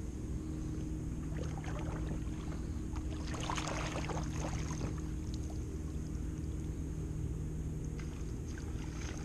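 Water splashing and trickling around a kayak, most active from about one and a half to five seconds in, over a steady low hum.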